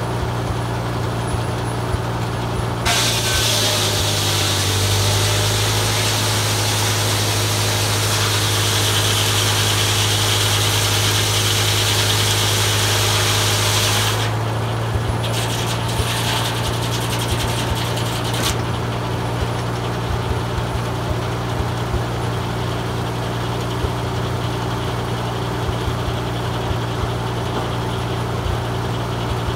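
Farmall M tractor's four-cylinder engine running steadily, belt-driving a Foley Belsaw circular sawmill. About three seconds in, the saw blade starts ripping through a pine log with a loud hiss that lasts about eleven seconds and then stops abruptly, and the engine's pitch drops slightly under the load. A few brief clatters follow.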